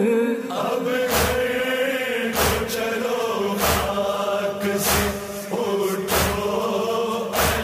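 A Muharram nauha (lament) chanted by voices in long, drawn-out held notes, with a heavy beat about once every second and a quarter.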